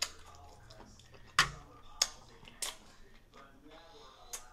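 A person chewing a jalapeño half stuffed with cream cheese and crushed Takis: a few sharp crunching clicks, the loudest about a second and a half in, with faint mouth noises between.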